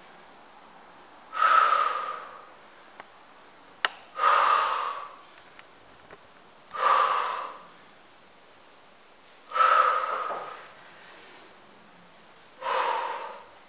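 A woman breathing out hard in time with her push-ups: five loud, breathy exhales about every two and a half to three seconds, each starting sharply and trailing off over about a second. A short sharp click comes just before the third breath.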